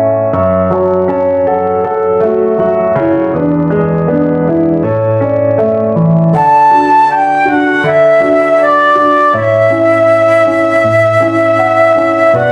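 Background instrumental music: piano chords over a held bass line with a flute-like melody, growing fuller and brighter about halfway through.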